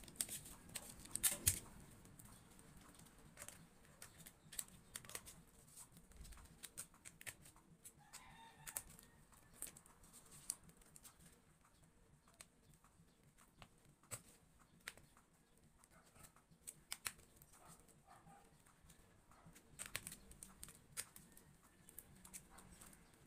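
Sparse, quiet clicks and rustles of small items and packaging being handled while packing orders, with a brief faint pitched sound about eight seconds in.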